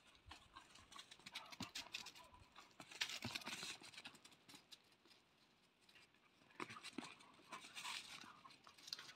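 Puppies' paws scrabbling and padding on dry dirt as they chase and play-fight, in two bursts of scuffling: the loudest about three seconds in, another near the end.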